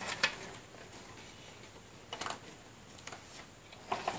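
Light clicks and knocks of plastic and metal parts being handled while a heat roll guide is fitted onto a copier fuser unit. A few sharp clicks come near the start, a short cluster about two seconds in, and more near the end.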